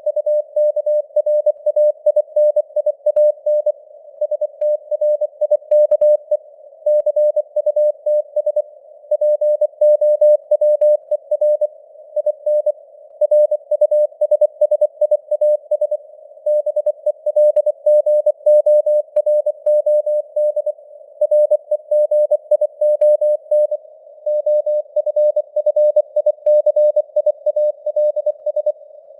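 Morse code (CW) sent at 24 words per minute: a single-pitch tone keyed on and off in dots and dashes, with short pauses between words. It sits in a narrow band of simulated radio hiss, with the signal strength fading up and down (QSB).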